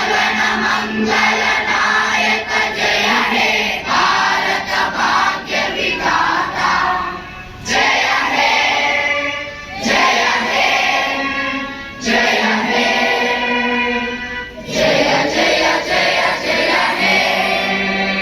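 A large group of school students singing together in chorus, in long phrases with short breaks between them.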